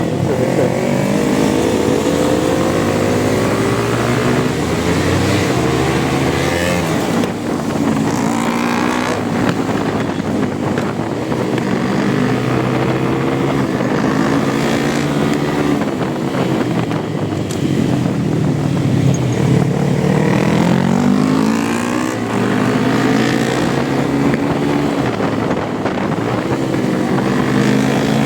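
Motorcycle engine running under way, its revs repeatedly climbing and dropping as the bike accelerates and slows.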